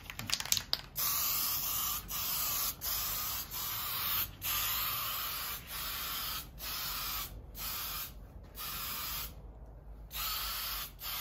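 Aerosol spray can of primer surfacer hissing in about ten short bursts with brief gaps, after a few clicks at the start, as light coats of primer are laid over a board repair.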